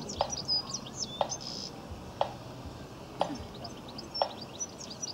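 Small birds chirping busily, with a short sharp tick repeating evenly about once a second.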